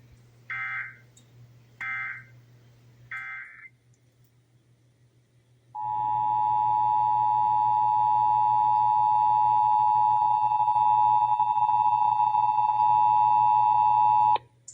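Emergency Alert System test audio: three short warbling SAME digital data bursts about a second apart, the end-of-message code closing the previous test, then after a short gap the steady two-tone EAS attention signal (853 and 960 Hz) sounding for about eight seconds and cutting off suddenly.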